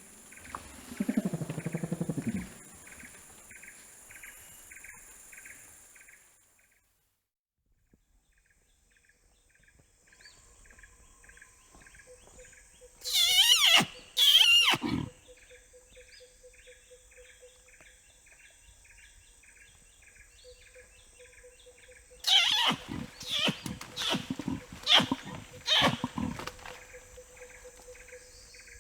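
Orangutan vocalizations: a low call fading out near the start, then loud kiss-squeaks that sweep steeply down in pitch, a pair in the middle and a cluster near the end. A background of rhythmic insect chirping runs under the calls.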